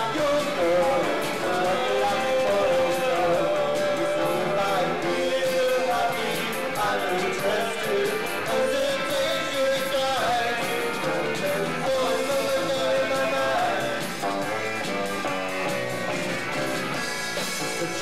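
Rock band playing live: electric guitars and drums, with a singer.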